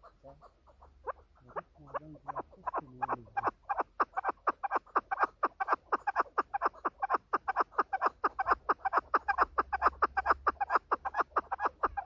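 Female chukar partridge calling: a few soft, low clucks at first, quickly building into a fast, steady series of sharp chuck notes, about five a second, that carries on to the end.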